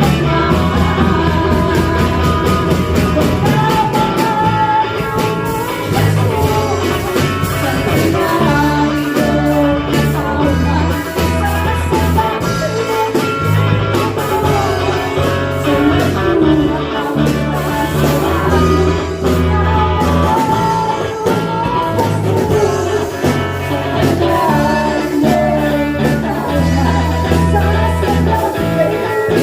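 Christian worship band music: a drum kit keeps a steady beat under bass notes and guitar, with singing.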